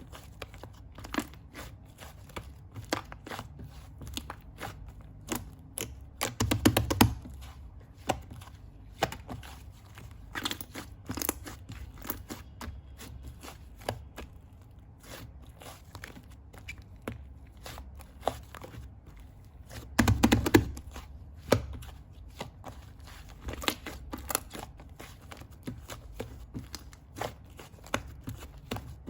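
Fluffy clay slime being handled, poked and pressed, giving a running series of small sharp pops and clicks, with two louder, longer bursts of pressing and popping about seven seconds in and again about twenty seconds in.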